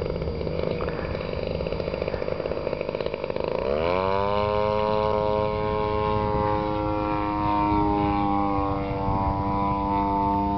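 Radio-controlled model airplane engine running roughly at low revs, then shooting up to a high-pitched steady run in one quick jump about four seconds in, with a small dip and step back up near the end. The owner puts this uneven throttle on a throttle servo that jumped and would not advance smoothly.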